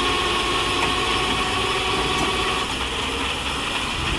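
Heavy truck engine running steadily while a tow truck winches an overturned dump truck back upright, with a thin steady whine that stops partway through.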